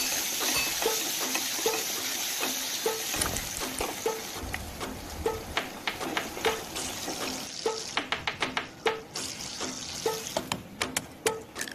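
Hot oil sizzling steadily around potato chunks frying in a pan. After about seven and a half seconds it turns to quick sharp crackles and pops as whole spices fry in the oil. Background music with a regular beat runs underneath.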